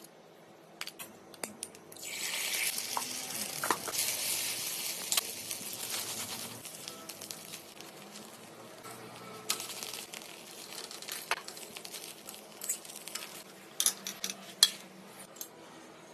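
Beaten egg hitting a hot iron tawa: a sudden loud sizzle starts about two seconds in and slowly dies down. Metal utensils click and scrape against the pan, with several sharp clinks near the end.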